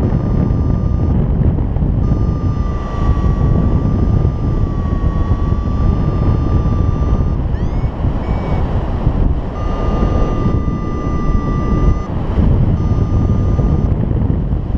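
Wind rushing over the microphone in flight, with a paraglider's variometer sounding long steady beeps and a couple of short rising chirps about halfway through.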